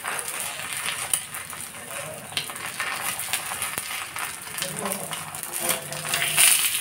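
An egg frying in oil on a flat griddle pan, sizzling and crackling steadily. Near the end a metal spatula scrapes against the pan beside the egg, the loudest moment.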